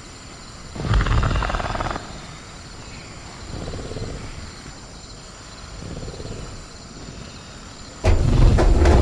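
Sound-designed velociraptor growling: a rattling growl about a second in, softer low growls after, then a sudden loud snarling outburst near the end.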